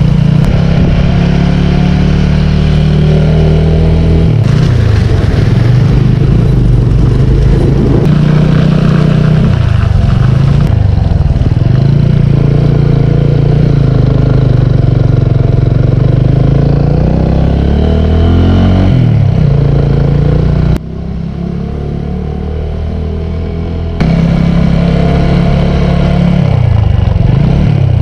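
Motorcycle engine running under way, its revs rising and falling repeatedly with throttle and gear changes. The sound changes abruptly a few times and drops quieter for about three seconds near the end.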